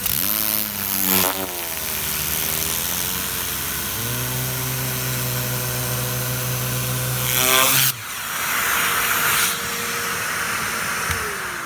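Tornador compressed-air cleaning gun running with its nozzle hooked to a vacuum cleaner: steady air hiss over a motor hum whose pitch shifts up and down as the airflow changes. There is a louder rush of air hiss about eight seconds in, and near the end a motor tone falls steadily in pitch as it winds down.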